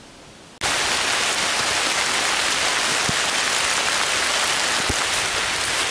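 Heavy rain pouring down, a loud steady hiss that cuts in sharply about half a second in after a faint steady hiss; two soft low thumps come through it near the middle.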